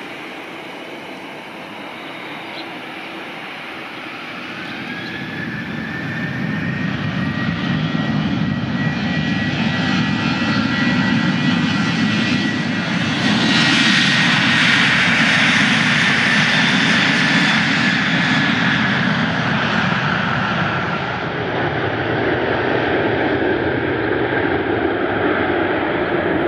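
Airliner engines growing louder as the aircraft passes close: a high, steady whine over a deep rumble. The sound is loudest about halfway through, after which the whine drops slightly in pitch.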